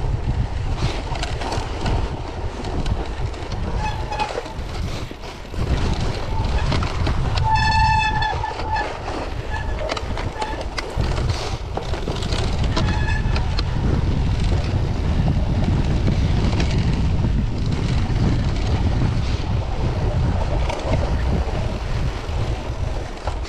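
Cyclocross bike riding over packed snow, with wind rumbling on the microphone and the tyres and bike running over the snow. A few brief high squeals cut through, the loudest about eight seconds in and weaker ones around four and thirteen seconds.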